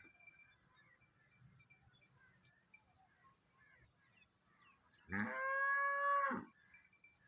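A calf moos once, a single call about a second and a half long near the end, rising in pitch at its start and dropping as it ends.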